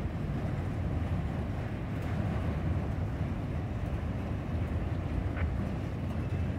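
Norfolk Southern autorack freight cars rolling past, a steady low rumble of steel wheels on rail.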